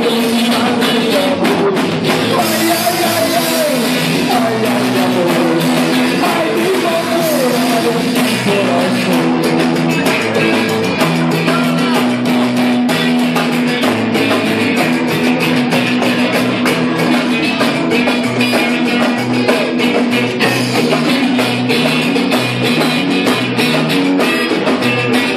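Live rock band playing loud and steady, with drum kit, guitar and singing.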